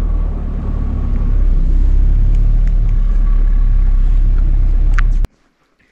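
A vehicle under way, a steady low rumble of engine and road that grows louder about a second in, then cuts off suddenly near the end.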